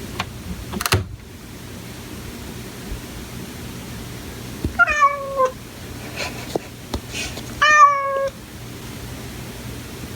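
A house cat meowing twice at a door, each meow a falling call, the second louder, as it persistently asks to be let in. A short tap about a second in.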